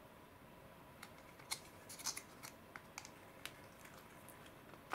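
Irregular sharp little clicks and crackles, a dozen or so in about three seconds starting about a second in, from hands handling a clear plastic dish of slime and a finger pressing into the slime.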